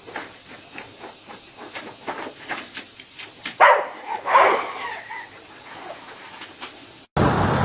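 A dog vocalising: a few short calls with falling pitch about halfway through, over scattered light clicks and taps. Near the end a steady rushing noise cuts in.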